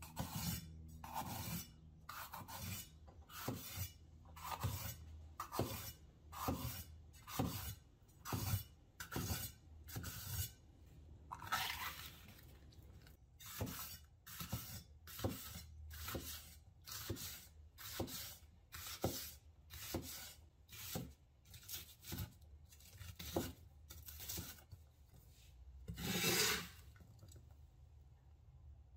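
Chef's knife slicing and dicing orange bell pepper on a wooden cutting board: a crisp cut ending in a tap of the blade on the board, about once a second. Twice, midway and, loudest, near the end, a longer scrape of the blade across the board, the last one scooping up the diced pepper.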